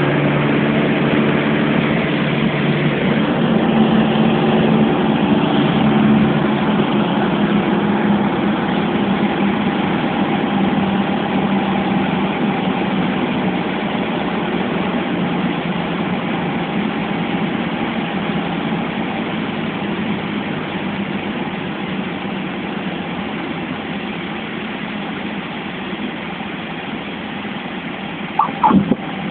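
Piper PA-28's piston engine and propeller running steadily at low power, heard from inside the cabin as the plane rolls along the runway after landing; the sound eases off slightly over the time. A couple of short knocks near the end.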